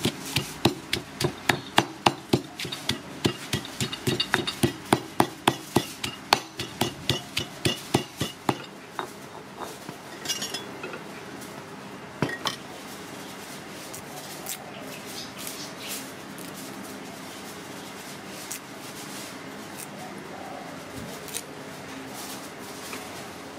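Stone mortar and pestle pounding in steady strikes, about two to three a second, stopping about eight seconds in. After that come a few light clinks of bowls and utensils being handled.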